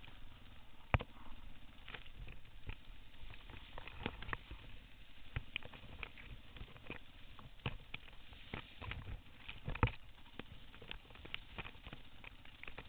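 Grass stalks and brush slapping and ticking against a dirt bike and its camera housing as the bike pushes through tall grass: irregular clicks and taps, with two sharper knocks about a second in and near ten seconds, over a muffled low rumble from the bike.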